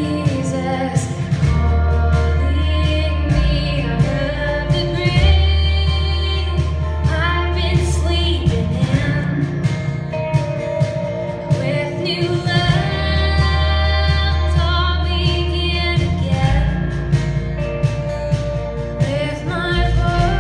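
A woman singing a pop song with band accompaniment. Sustained bass notes change about every two seconds under a steady beat.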